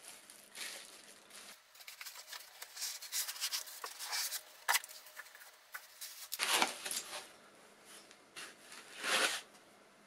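Packaging being handled: bubble wrap crinkling and plastic rustling with small clicks, then two louder rubbing scrapes of foam packing blocks, near the middle and near the end, as a boxed motor controller is taken out.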